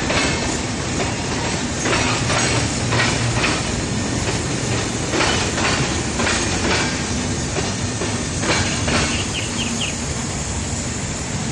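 Train rolling past on the rails, its wheels clicking irregularly over rail joints, with a steady low hum underneath. A few short high squeaks come from the wheels near the end.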